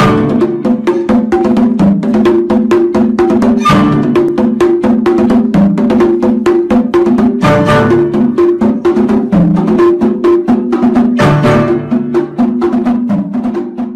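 Upbeat background music: a fast, even percussive click beat of about four to five a second over a repeating low melody.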